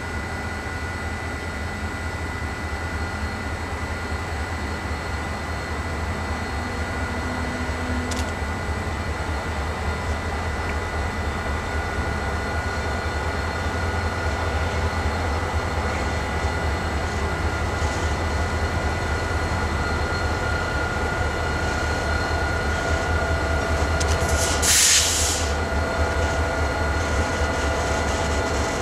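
Freight train led by two GP40 diesel locomotives approaching slowly, engines rumbling low and growing louder as it nears. A brief burst of hiss comes about 25 seconds in.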